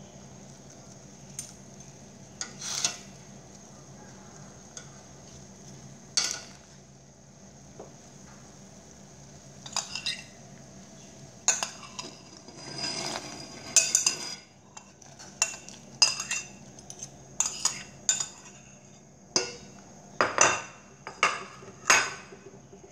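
A metal spoon clinking and scraping against a stainless steel soup pot and a ceramic plate in irregular knocks, sparse at first and coming thicker in the second half, over a steady faint hum.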